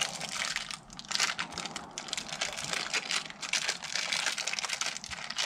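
Crinkling and irregular light clicks as pipe fittings are handled.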